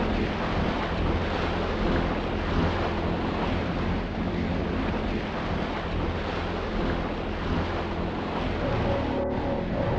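Sea waves and wind blowing across the microphone, with a steady low hum underneath. Just after nine seconds there is a short break, and a higher steady hum joins in.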